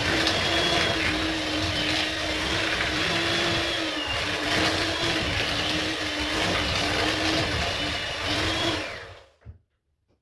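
Electric hand mixer whirring steadily as its beaters churn thick chocolate brownie batter in a bowl, then switched off about nine seconds in, its hum winding down.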